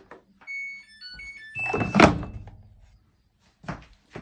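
A washing machine's control panel playing a short electronic tune of beeps at several pitches, followed by a loud thunk about two seconds in.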